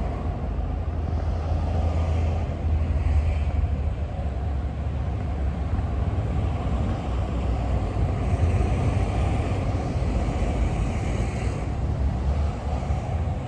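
Outdoor street ambience on a walk: a steady low rumble with no distinct events.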